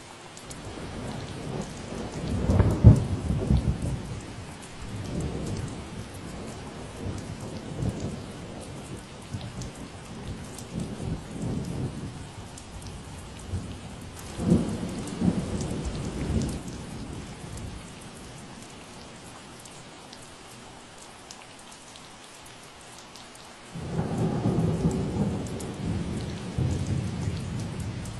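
Steady rain falling, with rolling thunder: a long low rumble builds from about a second in and dies away around the middle, then a second roll breaks in suddenly a few seconds before the end.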